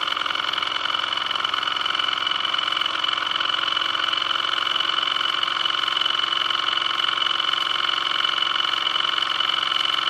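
Vintage toy steam engine with a small brass boiler running steadily under steam. Its piston and flywheel make a fast, even clatter with a steady high tone.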